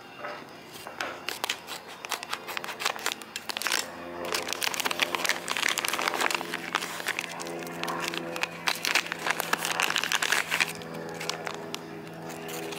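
Clear plastic bag crinkling and rustling as it is opened and handled, with background music coming in about four seconds in.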